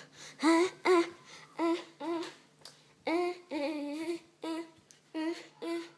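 A child singing a run of short wordless notes, about nine in all, each scooping up in pitch as it starts, with short gaps between them.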